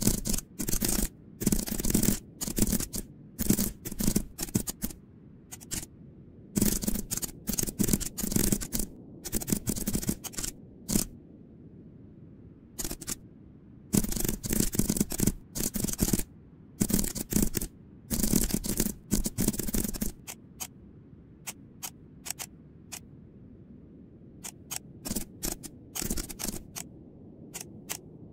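Computer keyboard typing in rapid bursts of keystrokes with short pauses between them, thinning after about twenty seconds to a few scattered single clicks.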